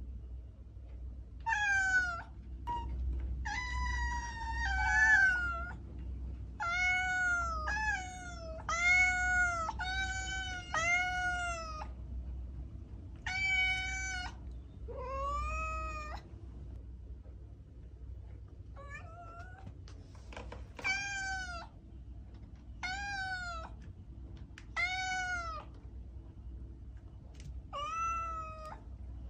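Domestic cat meowing over and over, about fifteen short calls that each rise and fall in pitch. They come in quick succession for the first dozen seconds, then more sparsely.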